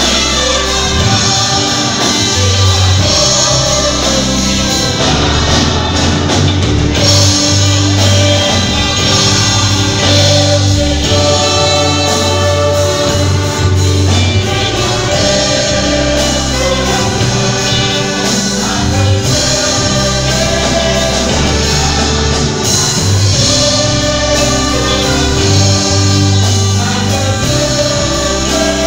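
Church choir singing a gospel hymn in Portuguese over steady instrumental backing with a low bass line.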